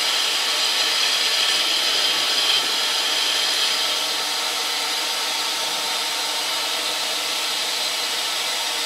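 Grizzly G0752 metal lathe running, with a steady mechanical whine and hiss, while a carbide insert takes an automatic roughing cut along a metal bar. The sound drops a little about four seconds in, as that cut ends and the lathe keeps running.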